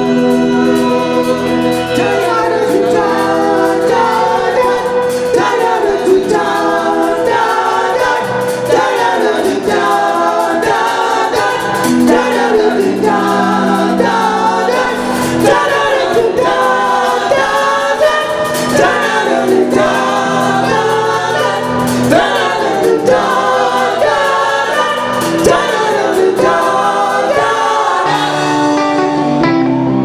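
Live soul band playing: several singers, men and a woman, sing together over Hammond organ chords, electric guitars, bass and drums.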